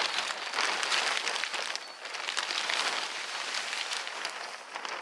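Black plastic tarp crackling and rustling as it is dragged and unrolled across the soil, with a brief lull about two seconds in.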